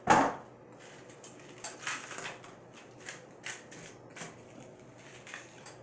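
Plastic candy wrapper crinkling in a series of short, crackly bursts as it is unwrapped by hand. A single loud bump comes right at the start.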